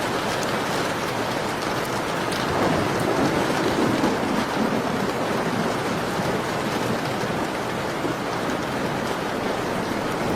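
Steady rain falling, mixed with faint fireplace crackles; the rain swells louder and fuller for a couple of seconds about a third of the way in.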